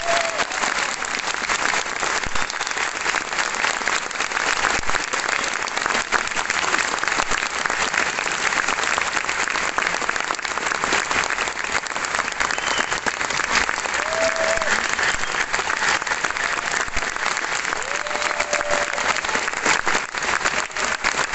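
Audience applauding steadily and loudly after a trumpet concertino performance ends.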